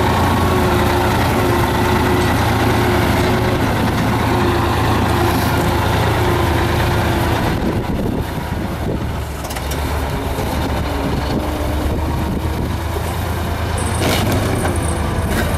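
Ural tanker truck's engine running steadily as the truck rolls slowly over concrete road slabs, with a couple of short knocks near the end.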